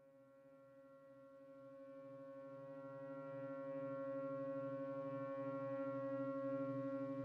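Electroacoustic music: a low sustained drone of several stacked steady tones that swells up from silence over the first few seconds and then holds, with a slight rapid wavering in its lowest tones.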